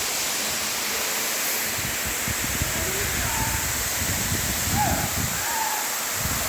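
Waterfall rushing in a steady, even roar, with gusts of wind rumbling on the microphone. A few faint, short gliding calls rise above it in the second half.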